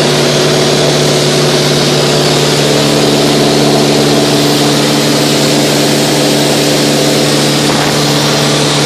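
Mooney 201's four-cylinder Lycoming engine and propeller running steadily at cruise power (about 55%), heard inside the cabin with a constant rush of airflow over the airframe.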